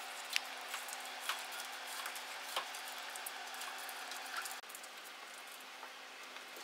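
A few sharp clicks and smaller ticks from hands working the camera wiring loom and zip ties along the underside of a pickup's frame, over a steady faint hiss and hum.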